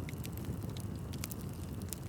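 Wood burning in an open bonfire: a steady low rush of flames with scattered sharp crackles and pops, about a handful in two seconds.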